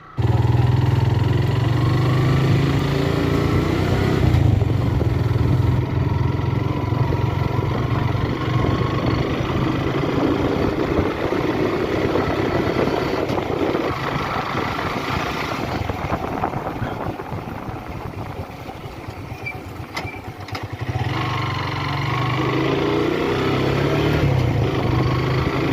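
Motorcycle engine running while riding. The sound fades somewhat in the middle of the stretch and comes back up strongly about three-quarters of the way through.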